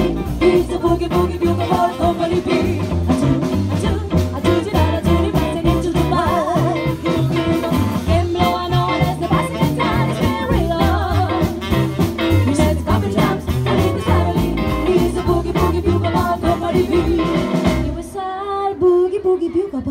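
Live band playing: three women singing over upright bass, drums and saxophone. About two seconds before the end the bass and drums stop and the voices carry on alone.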